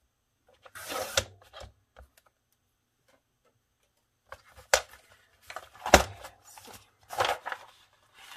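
A paper trimmer cuts through a sheet of patterned paper: a short scraping slice about a second in, ending in a click. Then comes paper rustling as the sheet is handled, with a few sharp clicks and knocks, the loudest about six seconds in.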